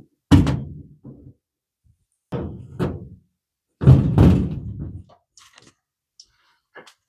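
Several dull thunks and knocks from a heavy-duty hand pop rivet gun being worked and handled. There is one just after the start, two in quick succession about two and a half seconds in, and the loudest, with a short tail, about four seconds in.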